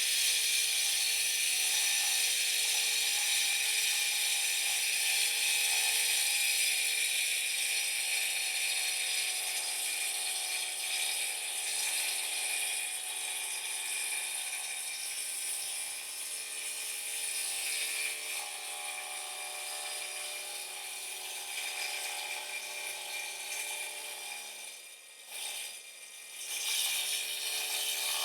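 Milwaukee MX FUEL 6-inch battery-powered green concrete saw running steadily, its blade cutting a control joint in green concrete. The sound is a steady, hissing whine that briefly drops away near the end and then picks up again.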